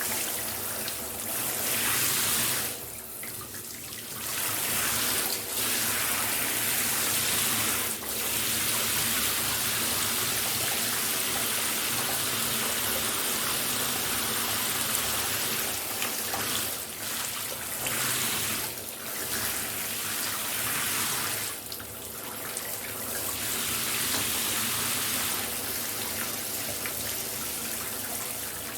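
Shower running: a steady rush of spraying water, with its level dipping briefly several times.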